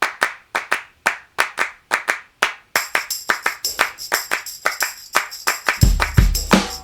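Music intro built on a rhythmic pattern of handclaps. A jingling high percussion layer joins about a third of the way in, and a heavy bass drum comes in near the end.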